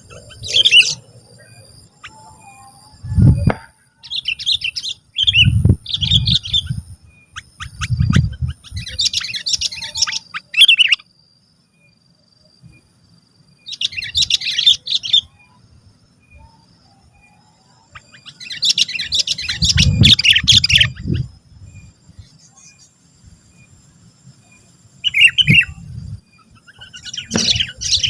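Sooty-headed bulbul singing loud, chattering phrases in bursts with pauses between them, as a bird in full song (gacor). Low dull thumps come in now and then alongside some of the phrases.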